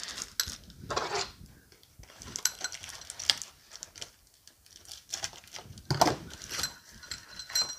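Packaging being cut open with scissors and pulled off by hand: irregular crinkling and rustling of the wrapping, with snips and clicks. A brief faint metallic ring comes near the end.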